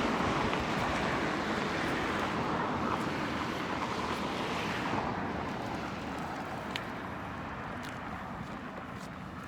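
Road traffic noise: the rush of a passing vehicle fading slowly away, with wind in the background.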